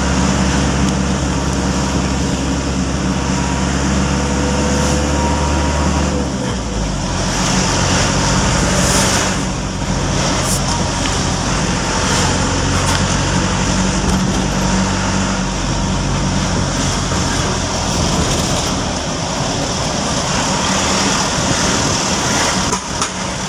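Engine and road noise of a vehicle driving along a city street, with traffic around it. The engine's steady low hum changes pitch about six seconds in.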